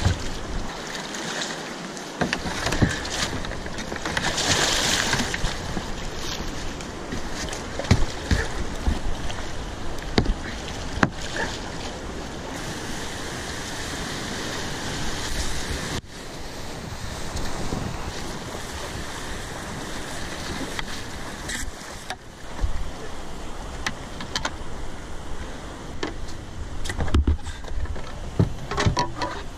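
Whitewater rapids rushing as a steady, full roar of water, with scattered sharp clicks and knocks over it. The sound shifts abruptly twice, about halfway through and again a few seconds later.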